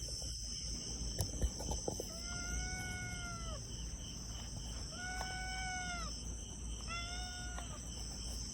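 A pet cat meowing three times, each call a long, even meow of about a second that rises slightly and falls. A few light clicks come in the first two seconds, and crickets chirp steadily throughout.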